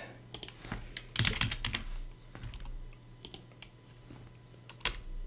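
Typing on a computer keyboard: a quick run of keystrokes about a second in, then scattered key presses, and one louder keystroke near the end.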